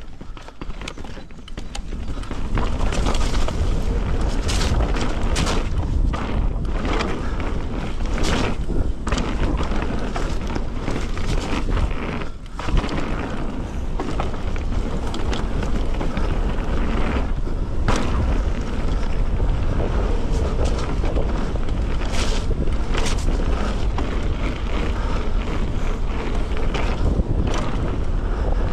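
Wind buffeting a chest-mounted action camera's microphone as a Merida One-Sixty mountain bike runs down a rocky dirt downhill trail, with tyre noise and repeated knocks and clatters from the bike over rocks and roots. It grows louder as the bike picks up speed about two seconds in, and eases briefly near the middle.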